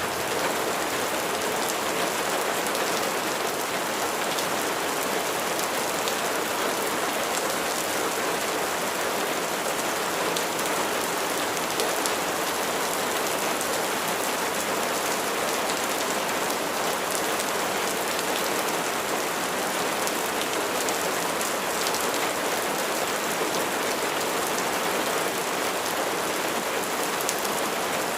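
Steady rain falling on a surface, an even patter of drops with faint scattered ticks, unchanging throughout.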